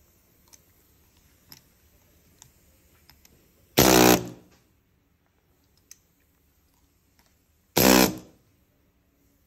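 Upholstery button-setting tool firing into the tufts of a velvet Chester backrest: two short, loud bursts about four seconds apart, each lasting about half a second, with faint clicks in between.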